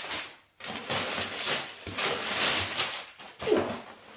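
Cardboard box and brown packing paper being handled and pulled apart: a dense, crackly rustling and scraping.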